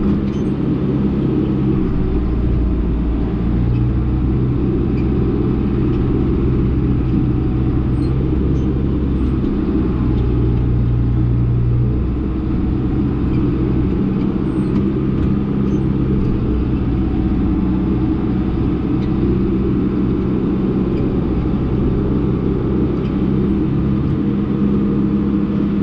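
Case 1090 tractor's diesel engine running steadily while pulling a sprayer across the field, its drone shifting slightly in pitch a few times.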